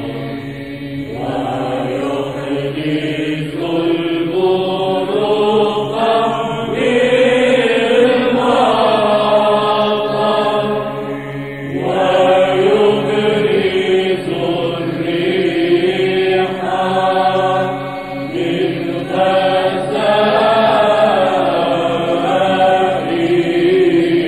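Byzantine Orthodox church choir chanting a slow, ornamented melodic line over a steady low held drone note (ison). There are short breaks between phrases about a second in and about halfway through.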